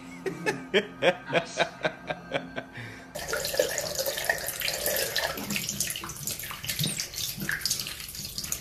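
For about the first three seconds, a quick run of about eight short, sharp pitched sounds. Then a tap running into a sink, the water splashing steadily onto a towel held under the faucet.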